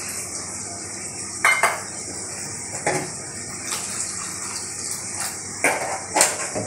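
A long metal spatula knocking and scraping against a steel kadai while stirring a thin, watery curry: a handful of sharp, irregularly spaced clinks over a steady hiss.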